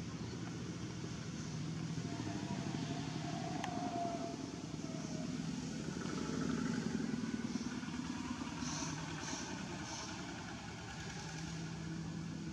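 Low, steady hum of a motor vehicle's engine running nearby, growing louder about halfway through and then easing off.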